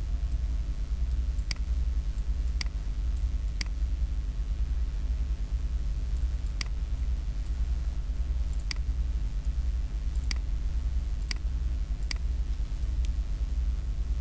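Computer mouse clicking now and then, about nine sharp clicks at irregular spacing, over a steady low hum.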